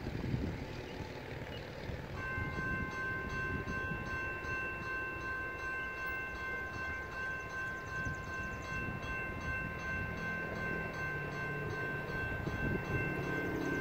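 A railroad grade-crossing warning bell starts ringing about two seconds in: a steady, high, ringing chord as the crossing activates for an approaching train. A low, distant train horn comes in near the end.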